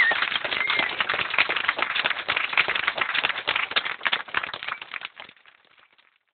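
Budgerigars chattering: a fast stream of clicks and rasps with a short whistled chirp at the start, breaking off about five seconds in.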